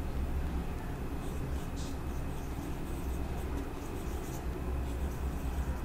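Marker pen drawing on a whiteboard: a series of short scratchy strokes of the felt tip, in clusters, over a steady low hum.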